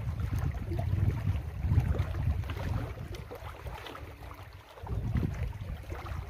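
Wind buffeting the microphone as a low, uneven rumble that eases briefly about four seconds in, with faint lapping of lake water against the shore rocks.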